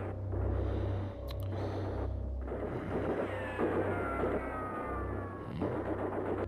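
Dark background score: a steady low drone, with a whistling tone that slowly falls in pitch through the second half.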